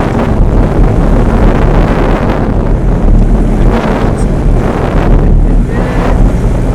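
Wind blowing across the microphone, a loud, steady low rumble.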